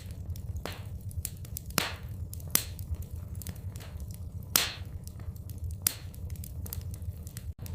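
Wood fire in a fireplace crackling and popping: irregular sharp pops every second or so over a steady low rumble, the loudest pop about four and a half seconds in.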